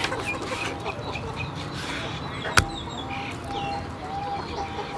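Chickens clucking and birds chirping in short repeated calls. About two and a half seconds in comes one sharp knock, a knife striking the wooden cutting board.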